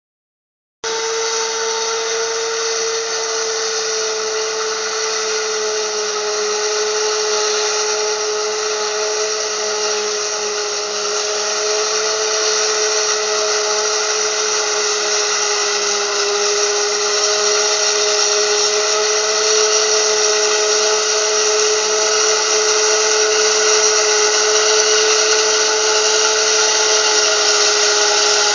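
Self-propelled forage harvester chopping maize, with the tractor and trailer running alongside: a steady high-pitched machine whine that slowly grows louder as they approach.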